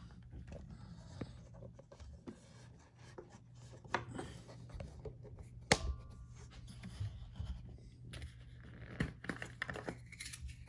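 Light handling noises of a plastic juice bottle and a paper cup on a desk: scattered soft scrapes and rubbing with a few sharper knocks, three of them standing out about 4, 6 and 9 seconds in.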